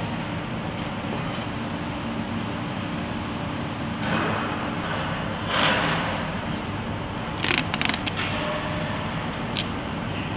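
Adhesive packing tape pulled off the roll and pressed around a fabric-sleeved metal pole, over a steady factory hum: a long rasping pull about five seconds in, then a quick crackle of tape near eight seconds.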